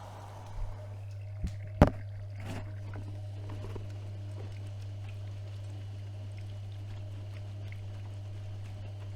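AEG Öko-Lavamat 76730 front-loading washing machine running mid-cycle: a steady low hum with a few knocks in the first couple of seconds, the loudest about two seconds in, then water moving faintly in the drum.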